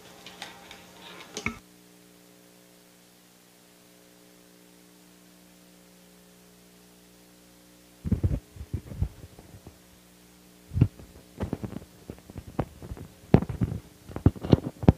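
Steady electrical mains hum from the sound system for several seconds. About eight seconds in it gives way to loud, irregular thumps and rubbing as the clip-on microphone is handled and reattached.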